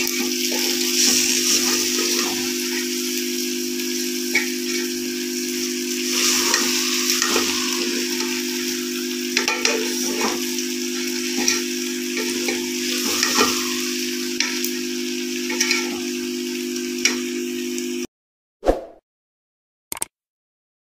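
Cut okra and chicken frying in oil in an aluminium pot, sizzling steadily while a steel ladle stirs and scrapes through them, over a steady low hum. About 18 seconds in the sizzle cuts off abruptly, followed by two short clicks.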